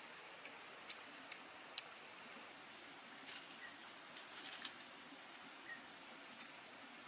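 Faint steady hiss with scattered soft clicks and crackles from crisp cooked spiders and leaves being chewed and then picked through by hand, with a cluster of crackling about four seconds in. A faint short chirp sounds now and then.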